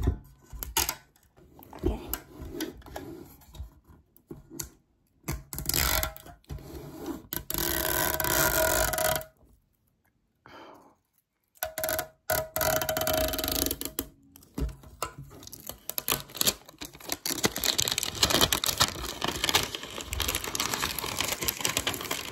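Perfume packaging being handled and opened: irregular rustling and crinkling with scattered clicks and scrapes, in several bursts separated by short pauses.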